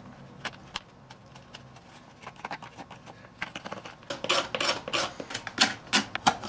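A knife blade cutting and scraping along the edge of a hard plastic dirt-bike part: short scraping strokes, a few at first, then quicker and louder from about four seconds in.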